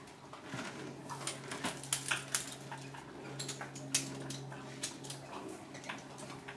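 Irregular light metallic clicks and clinks from a horse's halter buckles and lead-rope snap being handled, over a steady low hum that stops about five seconds in.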